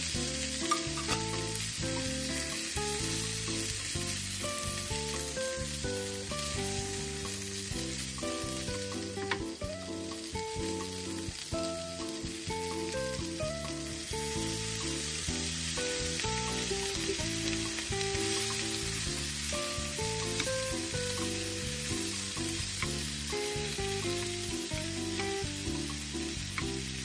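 Pork ribs and chopped vegetables sizzling in a frying pan as they are stirred with a wooden spatula. Background music with a melody of held notes plays over it.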